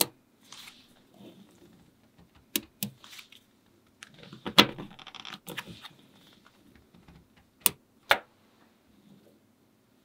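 Small magnetic balls clicking sharply as they snap together, with soft rattling between. About six separate clicks, two of them close pairs about a quarter to half a second apart.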